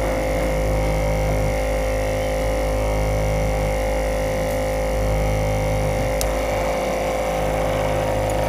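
LCD screen separator machine humming steadily, with a constant tone over a low drone that swells and fades every second or so, and one faint click about six seconds in.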